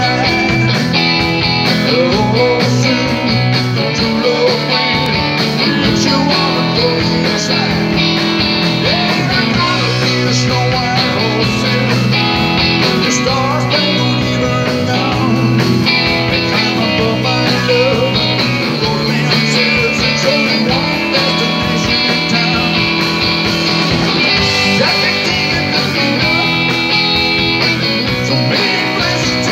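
A live rock band playing a song on electric guitars with bass and drums, the guitar lines to the fore.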